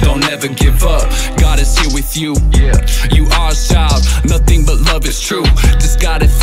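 Hip hop music with a rapped vocal over a heavy bass beat.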